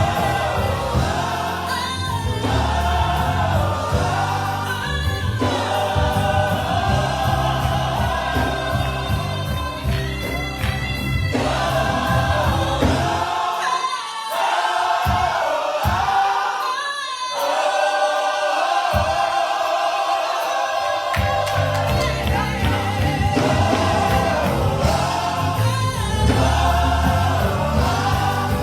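Gospel choir singing with instrumental backing. About halfway through, the bass drops out for several seconds, leaving the voices and higher accompaniment, then comes back in.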